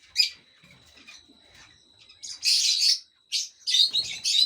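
A group of young lovebirds calling: one short high call just after the start, then bouts of rapid, high-pitched chirping calls from about two seconds in.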